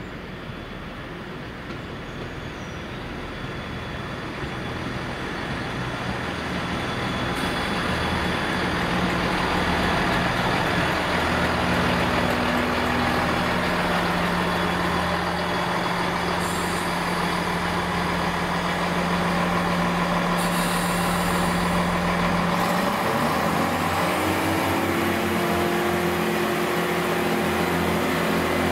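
A GWR Class 166 diesel multiple unit approaches and passes, its underfloor diesel engines running with a steady drone over wheel and rail rumble, and growing louder over the first several seconds. About 23 seconds in, the engine note rises in pitch and holds higher.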